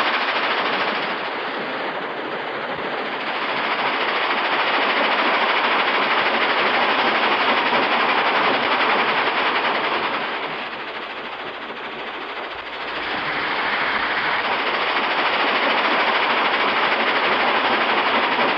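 Stone crusher running, a dense continuous clatter of rock being broken down into smaller stones. The din eases briefly twice, once near the start and once about midway.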